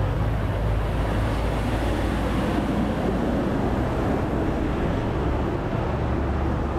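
Tanker truck overtaking close alongside a bicycle, a steady heavy rumble of engine and tyres.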